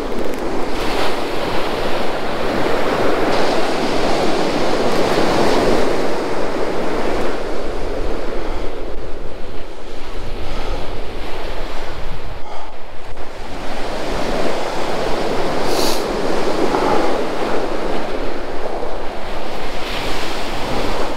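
Surf breaking on a sandy beach close by, swelling and easing in surges, with wind buffeting the microphone.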